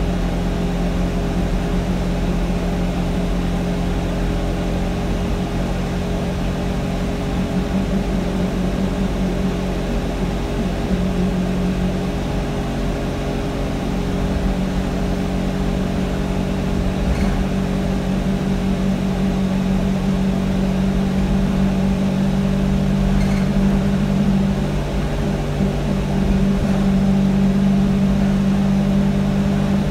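Alexander Dennis Enviro200 single-deck bus's diesel engine and drivetrain running steadily, heard from inside the passenger saloon as a steady low drone that grows a little louder near the end.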